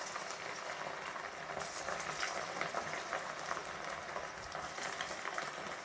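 Batter-coated cauliflower florets deep-frying in well-heated oil: a steady sizzle with many fine crackles as the freshly added pieces bubble hard.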